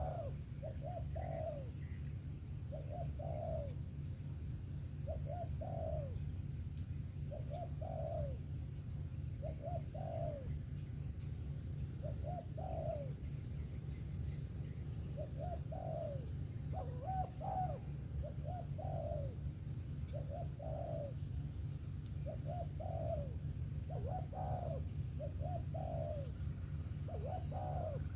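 Spotted dove (cu gáy) cooing over and over, a short phrase of low coos repeated about every second and a half, over a steady low hum.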